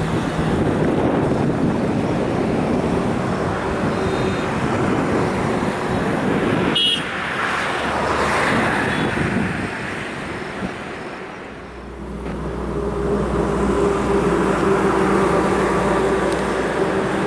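Steady road traffic noise from passing vehicles, with a short horn toot about seven seconds in. A steady engine hum sets in about twelve seconds in.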